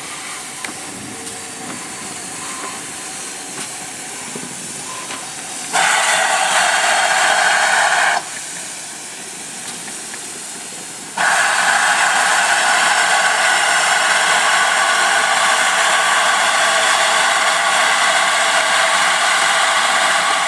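GWR 2884-class 2-8-0 steam locomotive No. 3822 letting off steam in a loud, steady hiss. The hiss cuts in sharply about six seconds in and stops two seconds later, then cuts in again about eleven seconds in and holds for about nine seconds. Before that there is a softer hiss from the locomotive standing in steam.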